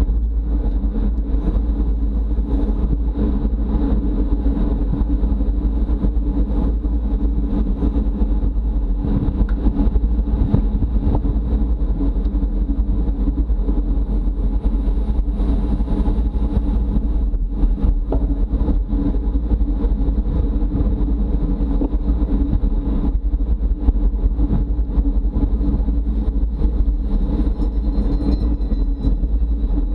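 Wind rushing over the microphone of a camera riding on a racing bicycle at speed: a loud, steady rumble with the hum of moving wheels beneath it.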